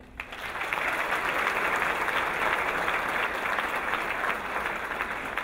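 Audience applauding: dense clapping that starts just after the opening, builds within about a second and holds steady.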